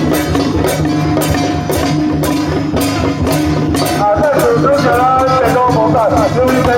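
Traditional ceremonial music played live: steady percussion strikes over a low drone, with a wavering, sliding melody that enters loudly about four seconds in.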